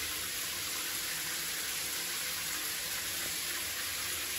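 Newly installed showerheads spraying water against a tiled shower wall: a steady, even hiss of running water.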